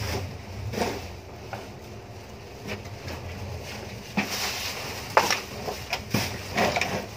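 Low wind rumble, then from about four seconds in a run of sharp rustles and knocks as black plastic garbage bags are handled close by.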